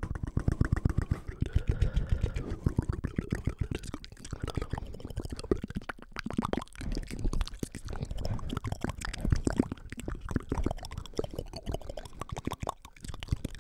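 ASMR 'inaudible' mouth sounds and unintelligible whispering right into a microphone: a dense run of rapid wet clicks and pops over a low breathy rumble.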